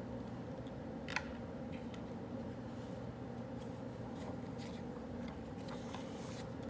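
Steady low hum of study-café room tone, with faint pen-on-paper scratching and small ticks scattered through, and one sharper click about a second in.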